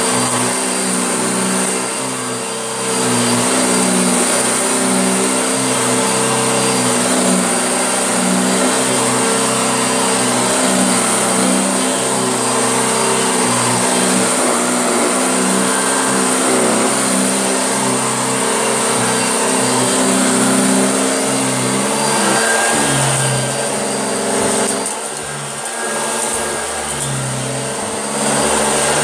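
Early-1970s Hoover Junior bagged upright vacuum cleaner running over carpet, a steady motor hum with a high fan whine. The sound dips and changes briefly twice, a couple of seconds in and again near the end, as the machine's load shifts.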